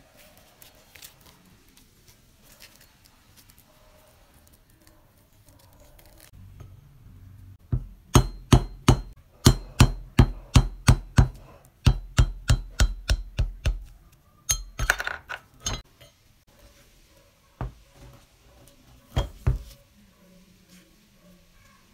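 Hammer blows on a steel punch, driving a bushing out of the cast-iron crank handle hub of an antique meat grinder: a quick run of about twenty sharp metallic knocks, three or four a second, then a few more scattered knocks.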